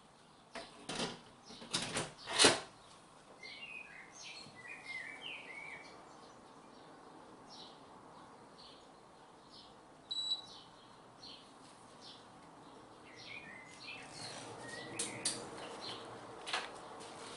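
Sharp clicks and knocks as the Pressure King Pro's lid is handled and closed, the loudest about two and a half seconds in, then a single electronic beep from its control panel about ten seconds in, and a few more clicks near the end. Small birds chirp outside throughout.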